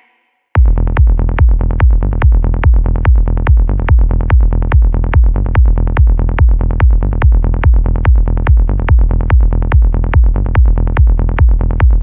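Psychedelic trance music: a steady electronic kick drum, about two to three beats a second, over a driving synth bassline, starting about half a second in after a brief gap.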